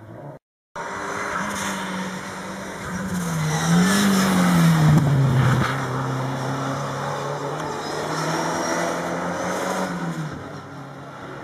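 Renault 5 GT Turbo rally car's turbocharged engine driven hard on a tarmac stage. The sound cuts out briefly just after the start. Then the engine note rises and falls as the car brakes and changes gear, holds steady under power, and fades near the end.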